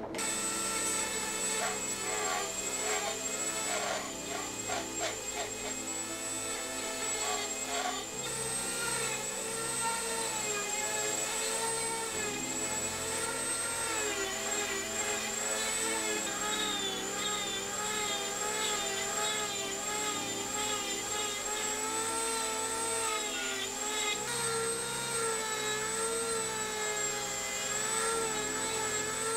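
Flex-shaft Dremel rotary tool running at high speed against white pine, its whine wavering up and down in pitch as the bit bears into the wood to shape and undercut the carved scales. A run of short scraping strokes sounds in the first several seconds.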